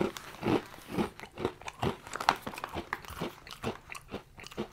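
Person chewing a crunchy biscuit, a healthy-style biscuit not sweetened with sugar and palm fat, with an irregular run of crisp crunches about three or four a second.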